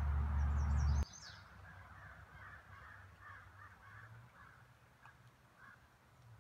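A steady low rumble cuts off suddenly about a second in. After it comes a crow cawing faintly, a run of short caws two or three a second, with a few high bird chirps near the start.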